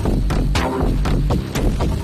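Electronic synth music with a steady beat over a deep, continuous bass.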